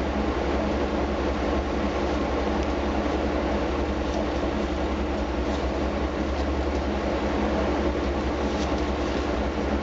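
Truck-mounted sewer vacuum and jetting equipment running steadily, a loud, even drone with a strong low hum, as it vacuums out the storm-drain outfall pipe.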